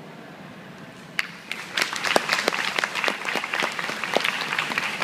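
Audience applauding the end of a choral piece: a brief hush, then a few scattered claps about a second in that swell quickly into full, steady applause.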